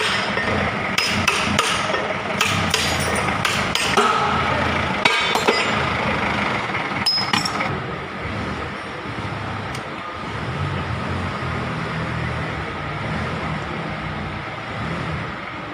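Hammer striking metal, a dozen or so irregular sharp knocks with some clinking, stopping about eight seconds in; a steady low mechanical hum runs underneath.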